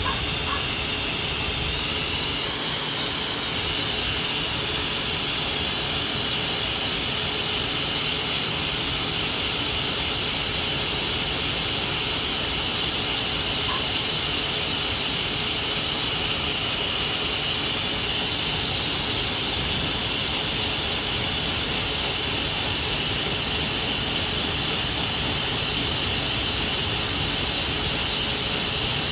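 Hair dryer running steadily on a dog's detangler-treated matted legs: a loud, even rushing of air with a steady high whine.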